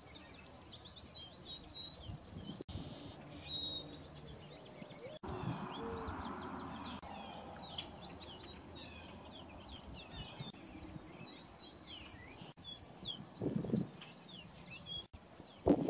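A busy chorus of small songbirds, with many short, high chirps and twitters overlapping throughout.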